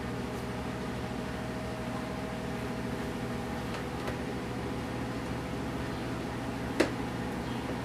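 A steady mechanical background hum, with a faint higher tone that stops about halfway through, and a single sharp click near the end.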